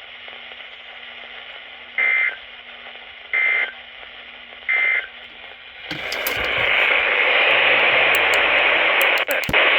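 NOAA Weather Radio played through a Spectra First Alert SFA1160 weather radio: three short bursts of SAME digital data, the end-of-message signal that closes the weekly alert test, about a second and a half apart, followed from about six seconds in by loud radio static hiss with crackles.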